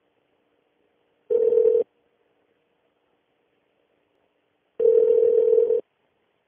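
Telephone ringback tone on an outgoing call, heard through the phone line: two rings, a short one about a second and a half in and a longer one of about a second near five seconds in, each a steady tone.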